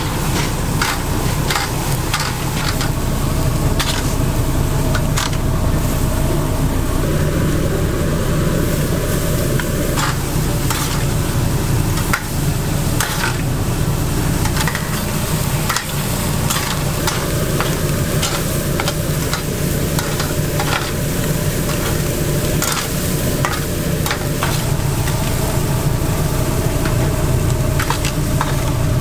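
Marinated chicken pieces sizzling over open flames on a grill grate, with metal spatulas scraping and clicking on the grate as the meat is turned, over a steady low rumble.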